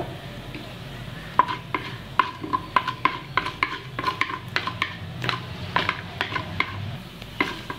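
Wooden spatula stirring urad dal frying in hot oil in a pan: a quick, irregular series of scraping taps against the pan, starting about a second and a half in, many leaving a short ring from the pan.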